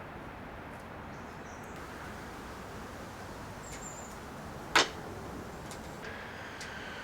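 A single sharp knock near the middle, over steady outdoor background hiss, with a few faint ticks and a faint whine coming in near the end.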